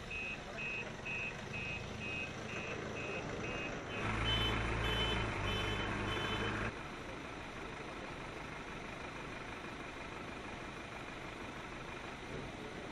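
Short high electronic beep repeating evenly, about two and a half times a second. About four seconds in it gives way to a louder stretch of a low rumble with a higher, slower beep for a couple of seconds. The rest is steady background noise.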